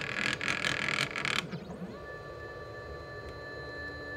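CNC 3018 machine's stepper motors moving a drag knife over sticker vinyl. A harsh, noisy whir for about the first second and a half, then from about two seconds in a steady whine of several tones.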